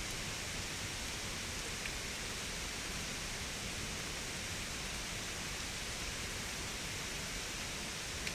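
A steady, even hiss, unchanging throughout, with no distinct knocks or tones.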